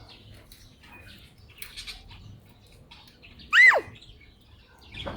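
A bird squawking once, loudly: a single call about three and a half seconds in that rises and then drops sharply in pitch, with faint chirps before it.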